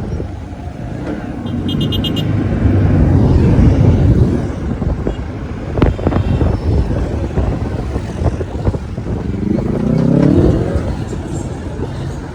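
Road traffic: a vehicle passes with a low rumble a few seconds in, and near the end an engine revs up, its pitch rising.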